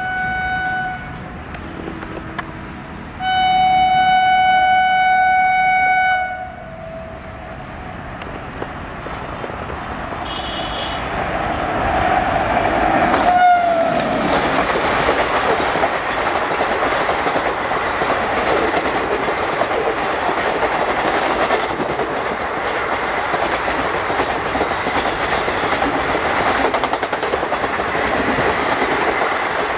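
Electric locomotive's horn on an Indian Railways express: a short blast, then a long blast of about three seconds as the train approaches. A last horn note drops in pitch as the locomotive passes, and then the passenger coaches run by at speed with a steady clatter of wheels on the rails.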